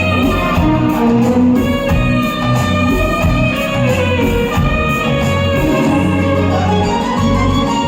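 Instrumental interlude of a Hindi film-song karaoke backing track, with melodic instruments over a steady, repeating bass line and no singing.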